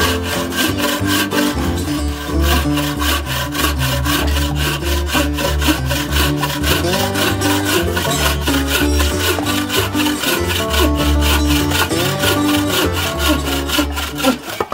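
Wooden bucksaw with a cord-tensioned frame cutting through a log in quick, even back-and-forth strokes, over background music.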